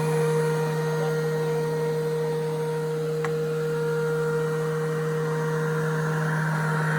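DeWalt DW735 thickness planer running steadily with a constant motor hum. There is a single faint tick about three seconds in, and a hissing noise builds toward the end.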